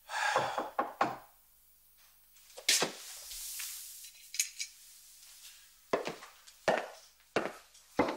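A man's movements in a small room: a wooden chair knocking and scraping as he rises, a glass clinking down on a wooden table, then slow footsteps on a hard floor, about one every 0.7 s, near the end.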